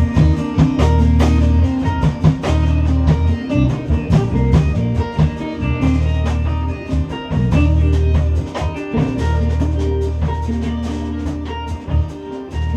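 Live band playing: guitar over a deep, held bass line, with a drum kit keeping time.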